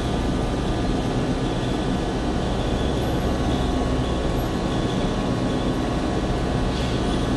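Steady mechanical drone with a constant hum running underneath, with no knocks, clicks or changes.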